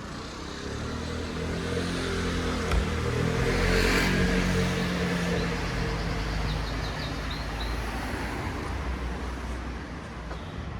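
A motor vehicle passing along the street, its engine and tyre noise swelling to a peak about four seconds in, then slowly fading away.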